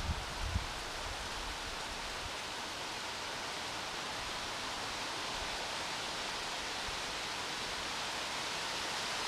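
Steady rustling hiss of wind through leaves, with a couple of low wind buffets on the microphone right at the start.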